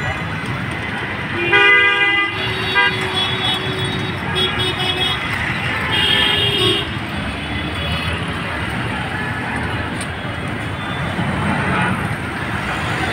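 Busy city street traffic: a steady din of engines and wheels with repeated vehicle horn toots, the loudest about two seconds in and again around six seconds.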